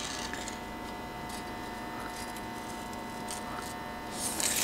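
Quiet room tone with a steady low hum, a few faint clicks, and a short scraping hiss about four seconds in, from a steel tape measure being handled and drawn out along a concrete floor.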